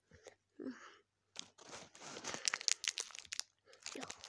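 A short hum from a child's voice, then, from about a second and a half in, dense crinkling and clicking close to the microphone.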